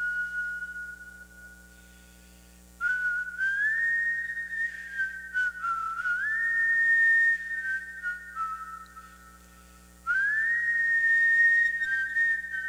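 A slow solo melody whistled in a high, pure tone. It holds long notes with gentle slides between them and sweeps up into new phrases about three, six and ten seconds in, with short pauses between phrases.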